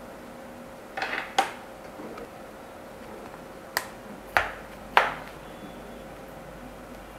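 Sharp clicks and knocks from handling Sony headphones and their packaging: a quick cluster about a second in, then three single louder clicks around four to five seconds in, over a faint steady hum.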